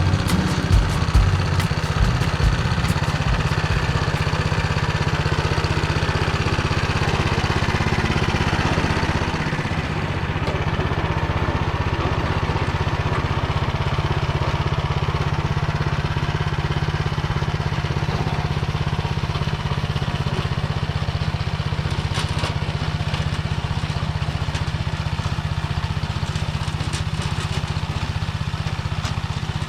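Small engine running steadily under load, driving a Motor Sich rotary tiller that churns hard, dry soil. A few sharp knocks come in the first couple of seconds.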